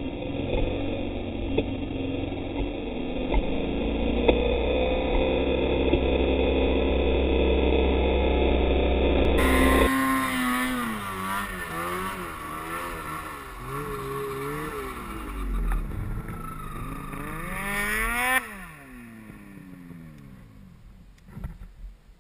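Snowmobile engine running hard at steady throttle through deep powder, then revving up and down over and over as the sled digs in. About 18 seconds in the revs fall away and it goes much quieter, the sled stuck in the snow.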